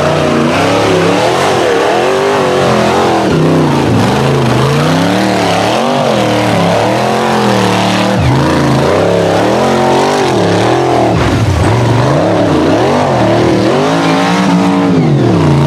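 Rock bouncer's engine revving hard, its pitch surging up and falling back again and again, roughly once every second or two, as it climbs a loose dirt hill under full throttle.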